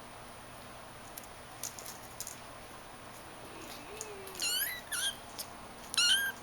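Persian kitten mewing: three short, high-pitched mews in the second half, after a few faint ticks.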